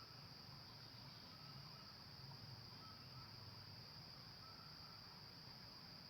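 Near silence with a faint, steady high-pitched insect drone like crickets, and faint short peeps repeating about every one and a half seconds.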